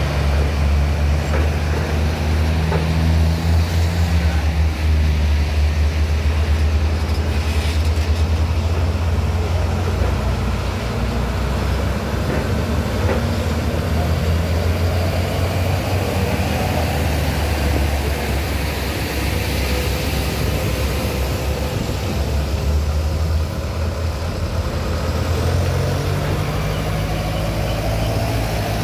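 Heavy diesel truck engines running as trucks drive off a ferry and up the ramp. A deep, steady engine drone continues throughout, with an engine pulling harder near the start and again near the end.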